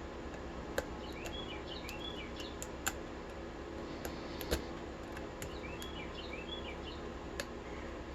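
A few sharp, isolated metallic clicks from a lock pick and tension wrench working the pin tumblers of a Kasp 12440 brass padlock, the loudest about halfway through, over a steady low background hum. Twice, a bird chirps a short phrase faintly in the background.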